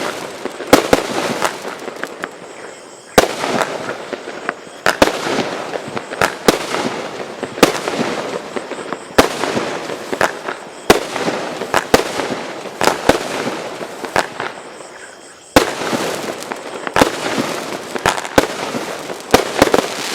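A 25 mm, 24-shot fireworks cake firing: a string of sharp reports, roughly one a second, with crackling and fizzing from the bursts between them.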